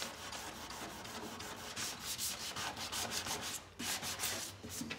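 Hand sanding pad scrubbing back and forth over the painted steel front fender of a Chevy truck in quick, even strokes, scuffing up the smooth clear coat so the primer has something to bond to.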